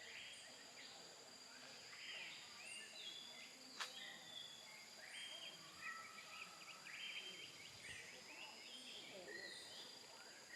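Faint birdsong of many short chirps and calls over a steady high insect whine, with a single sharp click about four seconds in.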